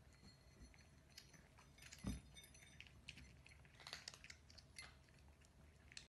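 Faint, scattered clicks and ticks of cats eating dry kibble from ceramic bowls, with one soft thump about two seconds in. The sound cuts off suddenly near the end.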